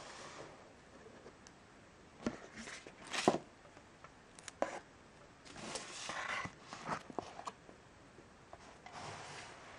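Handling noise of a tablet and its cardboard box: fingers brushing and sliding on the device and card, light clicks and taps, with a sharper knock about three seconds in.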